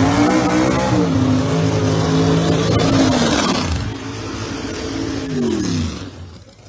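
Drag-racing cars launching and accelerating hard down the strip at full throttle. The engine pitch drops and climbs again at a shift about a second in and another about 3.5 s in, then the sound falls away and fades as the cars pull away.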